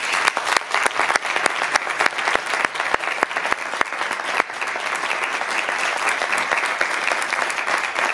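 Audience applauding, dense steady clapping that cuts off suddenly near the end.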